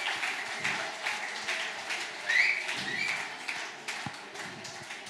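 Audience applauding, the clapping thinning out and dying down toward the end.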